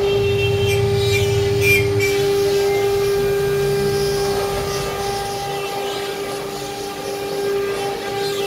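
CNC router spindle running with a steady high whine while the gantry travels and the bit cuts a board. A lower rumble beneath it eases about two seconds in.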